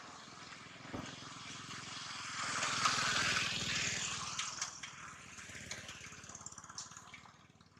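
A motor vehicle passing along the road, its engine and tyre noise growing to a peak about three seconds in and then fading away. A sharp click about a second in.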